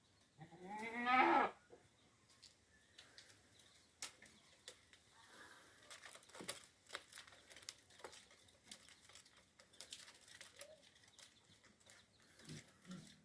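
A farm animal calls once, a loud pitched call of about a second that rises in pitch, followed by scattered light clicks and taps.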